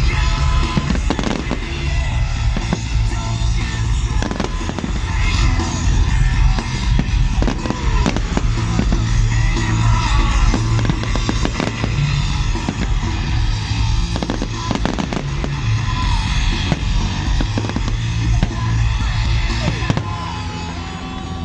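Firework display: a quick series of shells bursting and cracking, some in rapid clusters, over loud music with heavy bass.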